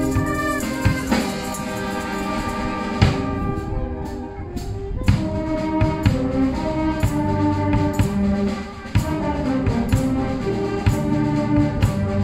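Wind band playing live: brass holding chords over regular drum-kit beats.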